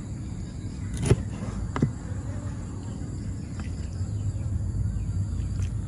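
Steel cleaver knocking down through squid onto a plastic cutting board: two sharp knocks about one and two seconds in, then a few fainter taps, over a steady low background hum.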